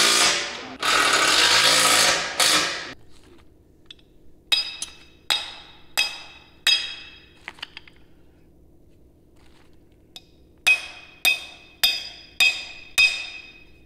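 A hand-held cordless power tool runs in two bursts of a second or two. Then a ball-peen hammer strikes the steel mounting plate of a spare-tire carrier: four ringing blows, a pause, then five more, a little over half a second apart.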